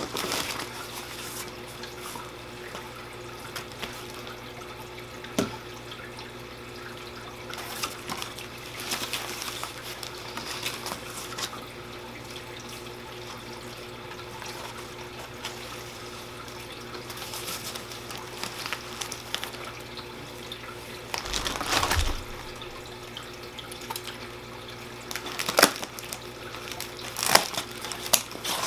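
Paper and packaging rustling and crinkling in short bursts as a plant cutting is unwrapped, with a soft thump a little after the middle. Under it runs a steady trickle of water from an indoor water fountain.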